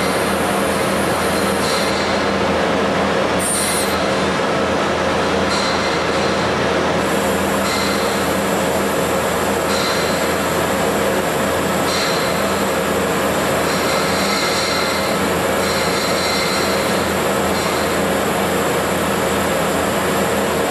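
Tube cutoff machine running steadily on stainless steel tube, a constant mechanical hum and whine. The high end shifts briefly about every two seconds.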